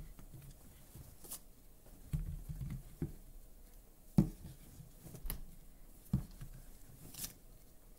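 Apples being set down one by one on a wooden tabletop: several dull thuds, the loudest about four seconds in, with light rustling and handling noise between them.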